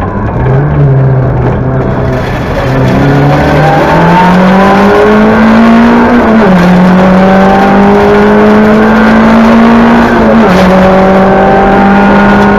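Talbot Samba Group B rally car's engine heard from inside the cockpit, loud and under hard acceleration. The revs climb steadily and fall sharply at two upshifts, about halfway through and again near the end.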